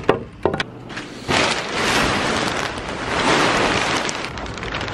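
A few sharp knocks, then from about a second in a loud, dense crackling rustle: the camera's microphone being handled and rubbed as the camera is picked up and moved.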